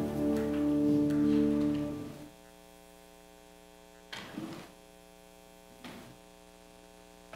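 Keyboard playing sustained chords that fade out about two seconds in, leaving a steady electrical mains hum. Two soft thumps come over the hum in the middle.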